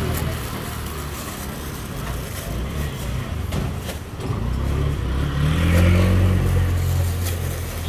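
A motor vehicle's engine running close by, a low hum that swells and rises a little about five seconds in, with a few metal clinks of a ladle against a soup pot.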